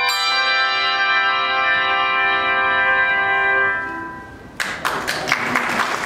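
Handbell choir ringing a final chord struck together, many bells sounding at once and dying away over about four seconds. About four and a half seconds in, applause breaks out.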